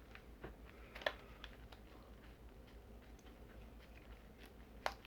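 Faint scattered clicks and taps of small objects being handled, with a sharper click about a second in and another near the end.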